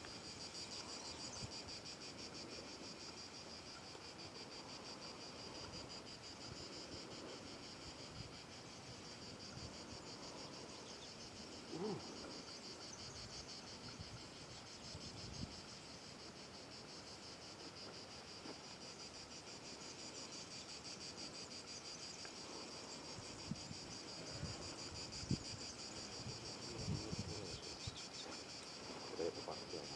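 Insects chirping steadily in a fast, even pulse. Low wind buffets on the microphone come now and then, mostly in the second half.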